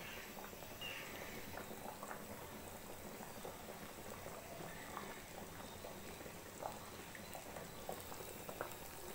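Goat head curry boiling in a wide metal kadai: faint steady bubbling, with small scattered pops as bubbles burst.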